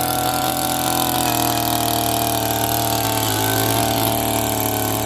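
Pro Quip Auger 58 earth auger's 58 cc two-stroke engine running at a steady pitch.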